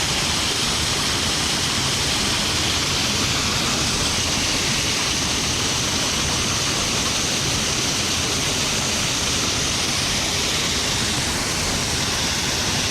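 Waterfall on a river in spate, a loud, steady rush of water.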